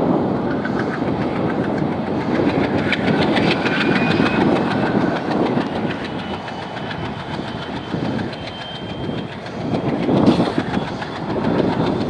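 WDM-3D ALCO diesel-electric locomotive working hard under power, its engine chugging and throwing dark exhaust smoke, with the wheels of the train clacking over rail joints as it passes.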